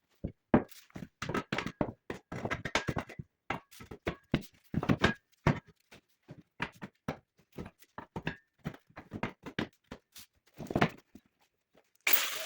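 Irregular knocks and clunks of metal parts being handled in a workshop, several a second and varying in strength. Just before the end a steady rushing noise cuts in abruptly.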